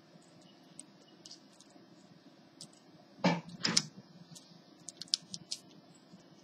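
Fingers handling an HP 6530b laptop keyboard and its ribbon cable make scattered small plastic clicks and taps. Two louder scuffs come in quick succession about three seconds in.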